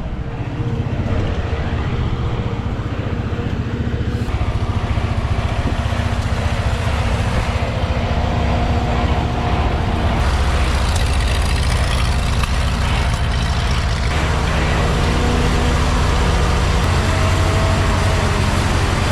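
A motor vehicle running steadily, with a heavy low rumble and faint steady whine.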